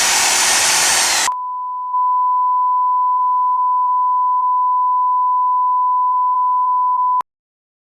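A loud burst of harsh, hissing noise cuts off about a second in. A single steady electronic beep tone follows, held at one pitch for about six seconds, and then stops abruptly.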